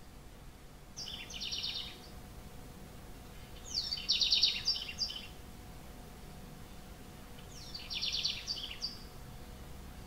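House wren singing: three short songs of fast trilled notes, each lasting about a second and a half and a couple of seconds apart, the middle one the loudest.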